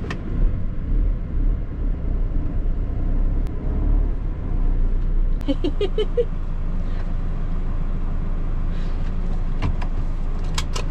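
A Fiat motorhome's diesel engine running low and steady, heard from inside the cab as it is manoeuvred slowly into a parking spot. A few short clicks near the end.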